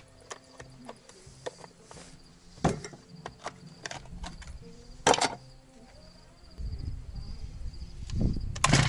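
Scattered knocks and clicks of a chainsaw and hand tools being handled on a wooden workbench, two of them sharp and loud, over the steady chirping of insects. A low rumble starts about two-thirds of the way through, and a loud clatter comes at the very end.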